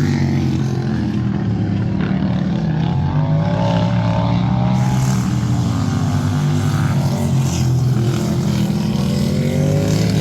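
Racing lawn tractor engines running at speed, their pitch slowly rising and falling.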